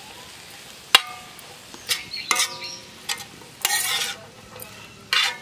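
Metal spatula scraping and clinking on a dosa tawa while a mix of chopped onions, tomatoes and spices is stirred and sautéed. There are a few sharp clinks with a short ring, the loudest about a second in, and scraping strokes near four seconds and again near the end.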